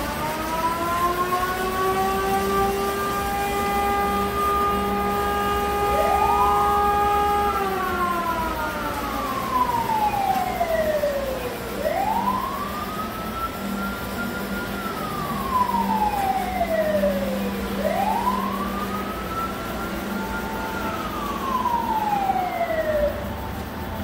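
Fire-engine siren sound effect of a miniature fire scene. One siren winds up and holds its pitch, then slides down. A second siren wails up and down in slow rises and falls, about three cycles of some six seconds each.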